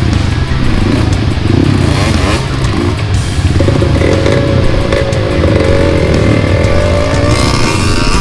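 Honda CRF150L dirt bike's single-cylinder four-stroke engine running at low trail speed. Its pitch wavers up and down as the throttle is worked, most plainly from about halfway in.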